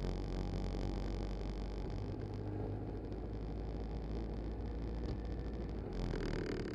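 BMW K1200LT motorcycle riding along: its inline four-cylinder engine runs as a steady low drone under road and wind noise, picked up by a camera mounted low on the bike's fairing.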